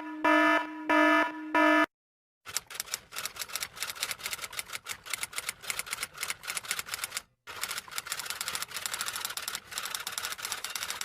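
A few short electronic beeps, then rapid typing clicks for the rest of the time, pausing briefly about halfway through.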